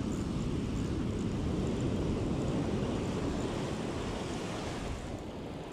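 Ocean surf breaking and whitewater washing in around the shallows, a steady rush that eases slightly near the end.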